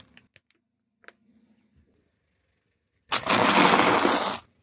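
A few faint ticks, then, about three seconds in, a car tyre rolls over crisp waffle cones and crushes them in a loud, dense crunching crackle lasting just over a second.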